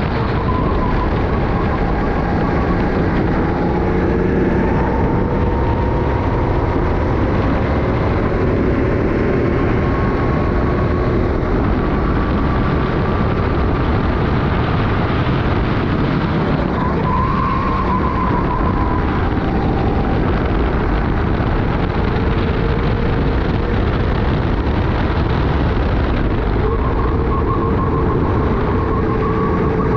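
Onboard sound of a racing kart's engine running at speed, its pitch rising and falling slowly as the kart accelerates and brakes through corners, under a steady rushing noise.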